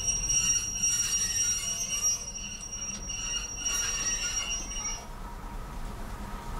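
Wheels of a Class 101 diesel multiple unit squealing against the rails: a steady high-pitched screech over the low running rumble, stopping about five seconds in.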